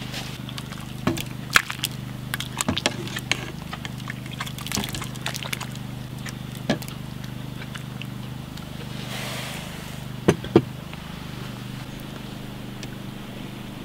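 A metal ladle serving fish soup from a pot into an enamel bowl: a string of sharp clinks of the ladle against the pot and bowl, with the soup splashing. A steady low hum runs underneath.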